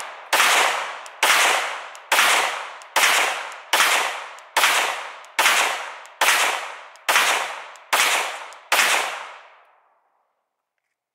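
A Glock 17 9mm pistol fired eleven times at a steady pace, about one shot every 0.85 seconds, each crack trailing off in a short echo; the last shot comes near the nine-second mark. The 115 grain Remington UMC hollow-point rounds feed and fire without a stoppage.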